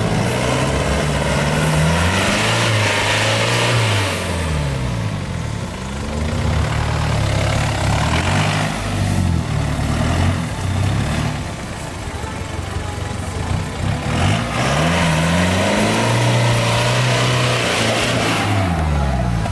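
Holden four-wheel-drive ute's engine revving up and down repeatedly as it climbs a slippery, rutted mud hill, the revs rising and falling every few seconds.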